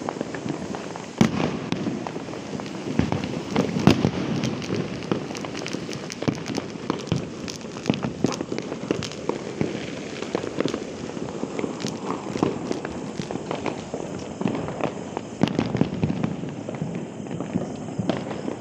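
Firecrackers and fireworks going off: a dense run of sharp bangs and crackles with no let-up, the sharpest about a second in and about four seconds in.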